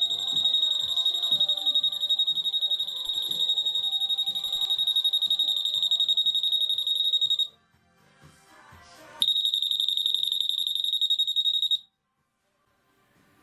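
Alarm of an 8.2 MHz RF anti-theft (EAS) security gate sounding a steady high-pitched tone, the signal that a live security tag is being detected between the antennas. It stops about seven and a half seconds in, then sounds again for about two and a half seconds and cuts off.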